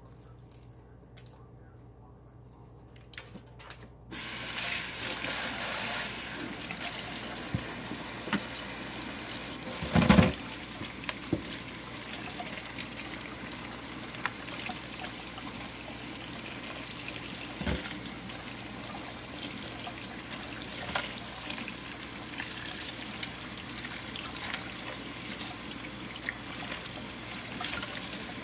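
Faint crackle and clicks of eggshell being peeled off a hard-boiled egg by hand, then a kitchen tap turned on about four seconds in and running steadily over hands and egg in the sink. A loud thump about ten seconds in and a smaller knock later.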